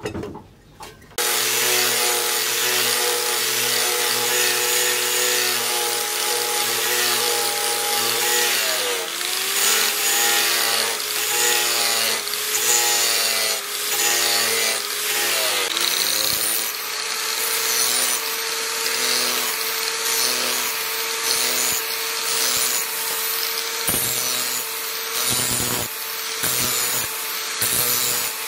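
Handheld angle grinder running with an abrasive disc, grinding the steel blade of a cleaver. It sets in about a second in, after a brief metallic clatter. Its motor whine drops in pitch several times between about nine and sixteen seconds in as the disc is pressed into the steel, then runs steadily.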